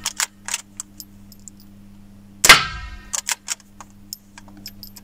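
A single shot from a Pallas BA-15 semi-automatic rifle in .22LR, firing Remington Golden Bullet ammunition, about two and a half seconds in, with a short ringing tail. Small sharp metallic clicks come before and after it.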